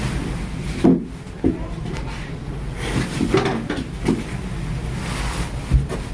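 Graston stainless-steel instrument scraping over the skin of the shoulder in strokes, with several short knocks, the loudest about a second in and near the end.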